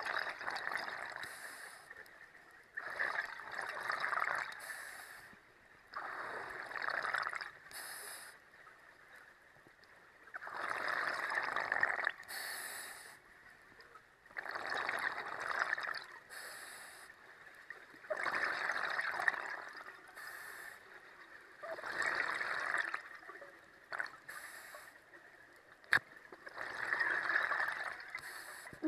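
Scuba diver breathing through a regulator underwater: the hiss of each inhalation and the bubbling of each exhalation, one breath every three to four seconds.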